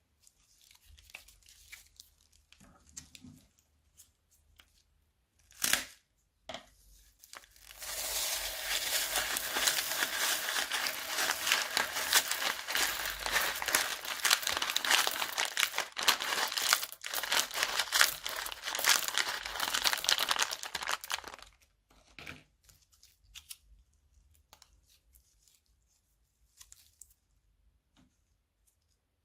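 Crunchy slime being squished and worked, giving a dense run of fine crackling and crunching that starts about seven seconds in and stops about fourteen seconds later. A few scattered crackles, one of them sharp, come before it, and more fall sparsely after.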